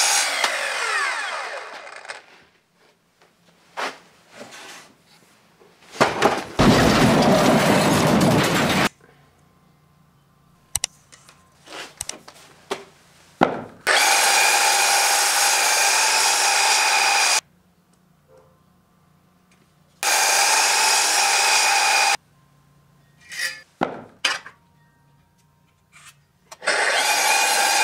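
Festool sliding mitre saw cutting thick wooden blocks in several short runs. The motor whine winds down at the start, and there is a loud, harsh cut through the wood about seven seconds in. Knocks from the blocks being handled come between the cuts.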